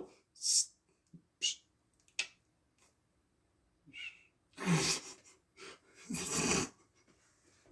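A person's breathing and mouth noises: a few short hisses and clicks, then two longer breaths about two-thirds of the way through.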